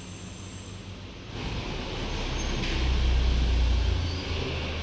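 A van's engine rumbling as it drives up, growing louder from about a second in, loudest just past the middle, then easing off as it slows.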